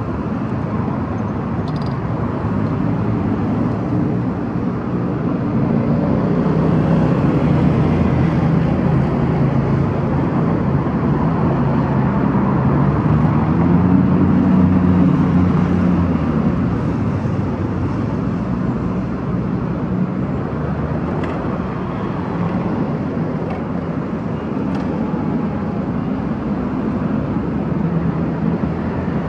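Road traffic: cars driving past close by, a steady rumble of tyres and engines that swells as each vehicle goes by, loudest twice, about a quarter and half of the way through.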